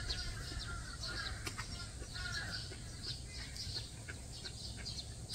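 Birds chirping over and over, short quick calls repeating throughout, over a steady low rumble.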